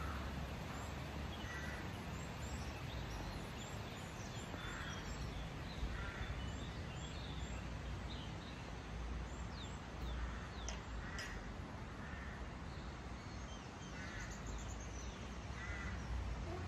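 Crows cawing every few seconds, with small birds chirping in the background over a steady low rumble.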